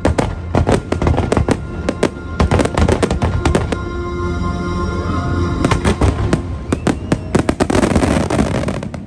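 Fireworks finale: rapid, overlapping shell bursts and bangs over the show's music soundtrack. Near the end the bursts give way to a dense wash of crackling.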